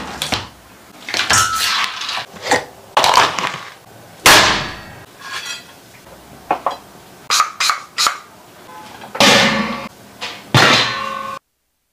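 A quick run of separate kitchen knocks, cracks and clatters as a snow crab and a plate are handled, ending with a stainless steel steamer lid set down with a short metallic ring. The sound then cuts off suddenly.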